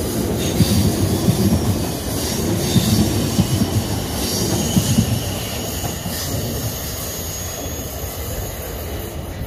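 Siemens Desiro electric multiple unit running past along the platform with a heavy rumble of wheels on rails. It grows quieter after about six seconds as the last carriages pass.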